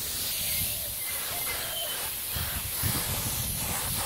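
Gravity-feed compressed-air spray gun hissing steadily as it sprays air-dry enamel paint.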